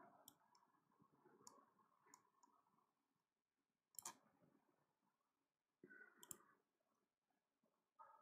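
Near silence: faint room tone with a few scattered faint clicks, the clearest about four seconds in.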